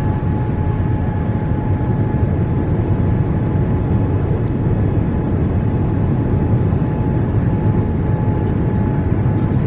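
Jet airliner cabin noise heard from a window seat in flight: a steady low rumble of engines and rushing air, with a faint steady whine above it.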